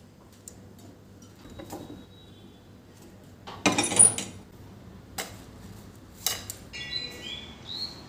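An iron tawa clattering against the gas stove's metal grate about halfway through, followed by two lighter metal clinks. Birds start chirping near the end.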